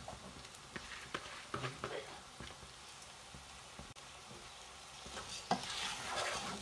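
Rice frying in hot oil in a pan, stirred with a spatula that scrapes the pan a few times; the sizzling swells louder about five and a half seconds in.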